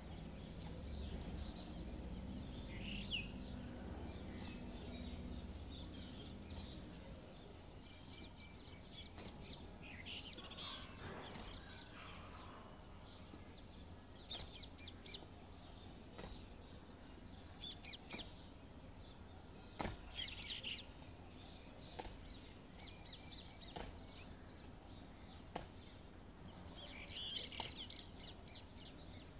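Faint outdoor ambience with birds calling now and then: short calls every few seconds, a cluster near the end. A low rumble underneath fades out after the first several seconds.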